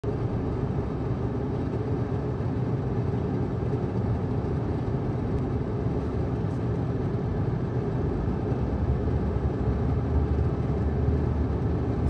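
Steady low rumble of a vehicle's engine and tyres heard from inside the cab, with no distinct events.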